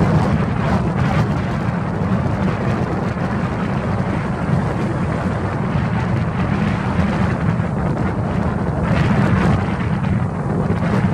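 Strong north wind (the Vorias) buffeting the microphone: a loud, steady rumble that swells in gusts, with a stronger gust about nine seconds in.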